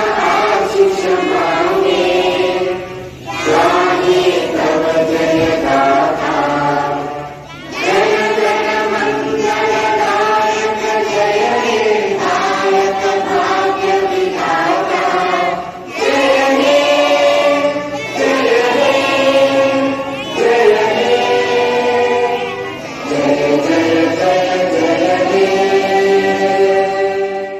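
A large group of schoolchildren sings a prayer together in unison, in sung phrases with short breaks between them.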